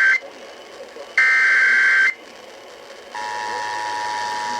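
Emergency Alert System broadcast for a flash flood warning. The screeching digital header bursts end with a final burst about a second in, lasting about a second. About three seconds in, the steady two-tone EAS attention signal begins.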